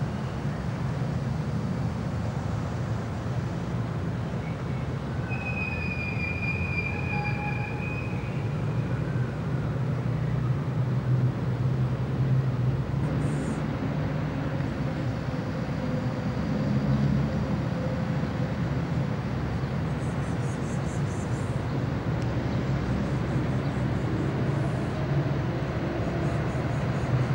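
Steady low rumble and hiss of city street traffic, with a brief high squeal about six seconds in that lasts a couple of seconds.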